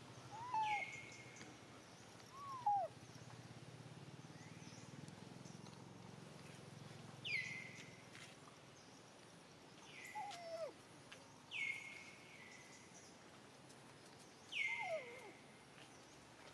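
Short animal calls every few seconds: sharp high notes that drop quickly and then level off, and lower calls that slide downward, sometimes both together.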